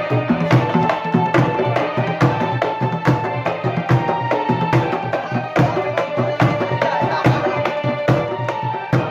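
Bantengan percussion ensemble playing: a large bass drum and hand drums struck in a fast, steady rhythm, with a higher held melody line over them.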